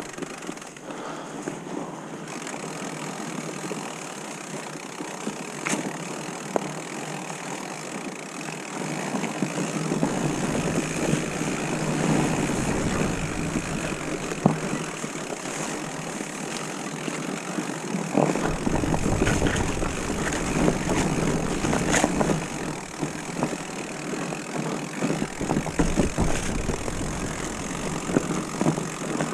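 Mountain bike riding over a leaf-covered forest trail: steady tyre and rolling noise with rattles and sharp knocks from the bike over roots and rough ground, getting louder from about ten seconds in.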